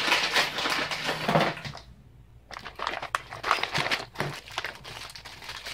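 Plastic parts bag crinkling and rustling as it is handled and opened by hand, with a short pause about two seconds in.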